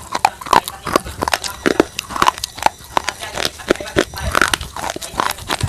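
Close-up biting and chewing of something hard and dry, a steady string of sharp, irregular crunches several times a second.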